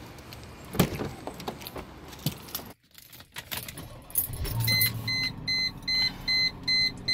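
Car keys jangling and clicks from the door and ignition as a key goes into the ignition. Then the car's electronic warning chime beeps steadily, about two and a half beeps a second.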